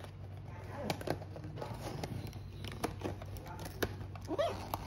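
Scattered light clicks and taps over a steady low hum, with a short squeaky gliding sound near the end.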